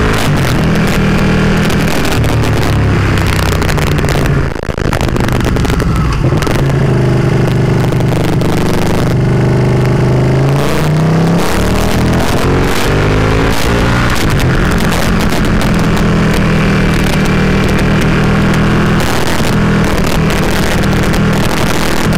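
Ducati Panigale 959's L-twin engine running under load, heard from the bike itself, its pitch stepping with gear changes: a brief drop about four and a half seconds in, and a rising pull under throttle around eleven seconds in. Heavy wind rush lies over the engine throughout.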